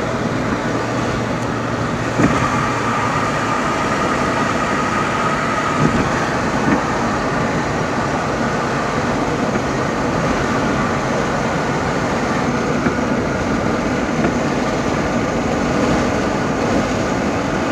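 Steady road and tyre noise of a car driving at highway speed, heard from inside the cabin, with a few short thumps, the first about two seconds in. A faint high whine sounds for a few seconds after the first thump.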